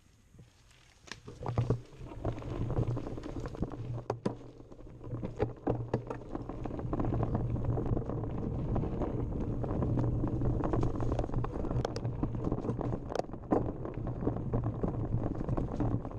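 Mountain bike rolling fast down a rough dirt trail: a steady rumble of tyres and rattling bike, broken by sharp knocks over roots and rocks. It sets in about a second in and grows louder over the first few seconds.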